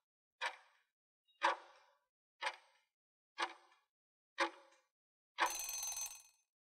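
Countdown timer sound effect ticking once a second, five ticks, then a ringing alarm about a second long as the countdown runs out.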